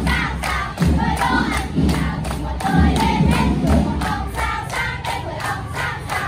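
A group of young girls singing together in unison, with steady rhythmic hand clapping.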